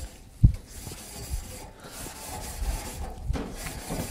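Grill brush scrubbing back and forth over the hot grates of a preheating Weber Summit S670 gas grill, in uneven scraping strokes, with one low thump about half a second in.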